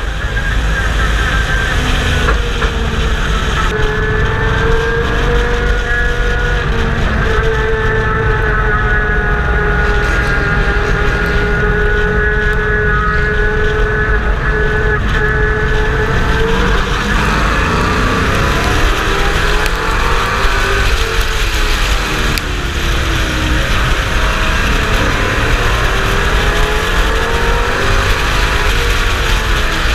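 Race truck engine at racing revs, heard on board under heavy wind rumble. The engine note holds steady for a long stretch. About two-thirds through, and again near the end, it drops and climbs back as the truck lifts for the turns and gets back on the throttle.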